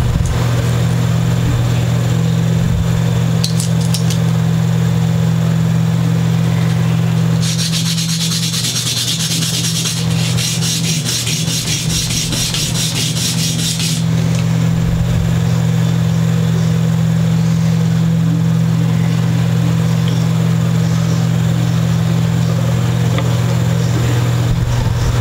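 A guitar nut being sanded down for about six seconds, starting about seven seconds in: quick, scratchy back-and-forth rubbing strokes on an abrasive. A steady low hum runs underneath throughout.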